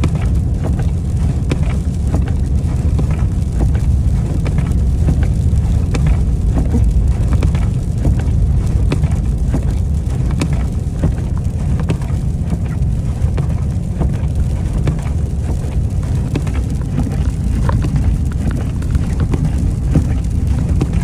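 Steady low rumble of a semi truck's engine and tyres, heard from inside the cab while driving on an icy road. Many sharp ticks run over it throughout, from ice pellets striking the truck in an ice storm.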